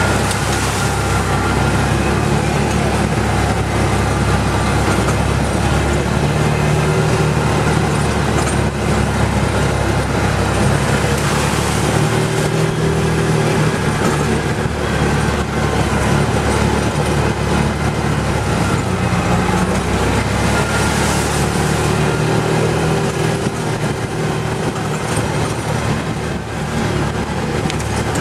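ATV engine running continuously under load while climbing a rocky trail, its pitch rising and falling a few times with the throttle, over a steady rattle and rush of noise.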